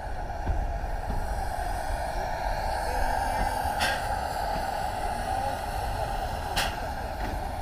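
Steam tank locomotive moving past at close range: a steady hiss and rumble, with two short sharp bursts, one nearly four seconds in and one near the end.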